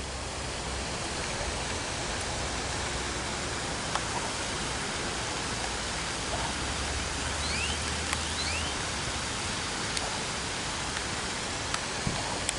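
Steady rushing hiss of falling water. A few short, rising bird chirps come about two-thirds of the way through.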